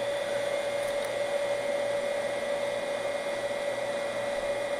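Steady whir of a power supply's cooling fan, with a constant mid-pitched hum running through it.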